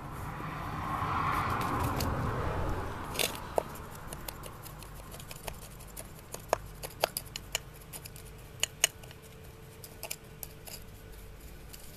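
A pointed screwdriver being jabbed into and pulled out of a soil-and-gravel potting mix around a bonsai's roots, giving many small irregular gritty clicks and scrapes, to settle the soil and close air gaps around the roots. A soft rushing noise comes first, for about three seconds.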